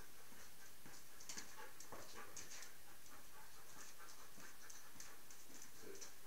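Belgian Malinois panting as it moves around on a concrete floor, with many light, sharp clicks scattered through.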